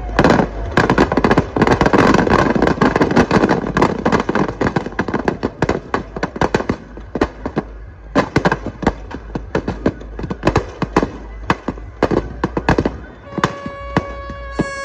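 A long string of firecrackers going off in rapid pops, densest in the first few seconds and then thinning to scattered cracks. Near the end a steady, held, horn-like tone begins.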